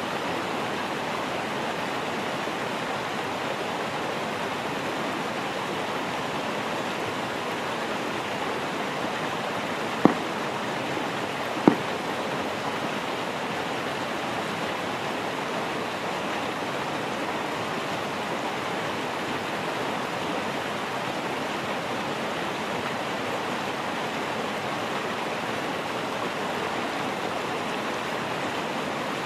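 Steady rush of a mountain stream, with two sharp knocks about a second and a half apart near the middle.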